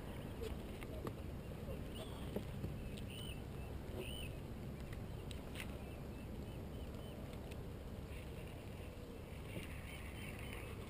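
Steady low rumble of wind and water around a kayak on open water, with a few faint short high bird chirps, some about two to four seconds in and more near the end.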